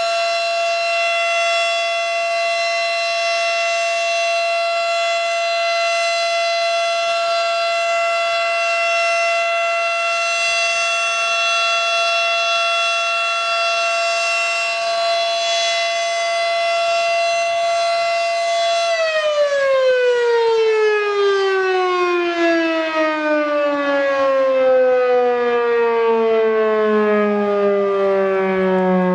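Federal Signal Model 7 outdoor warning siren sounding a loud steady tone during its test. About two-thirds of the way through, the pitch starts falling steadily as the siren winds down.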